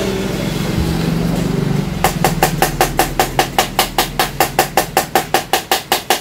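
Plastic toner cartridge being tapped in a fast, even run of sharp knocks, about five a second, to settle the toner powder inside so more can be poured in. A low steady hum comes before the tapping starts, about two seconds in.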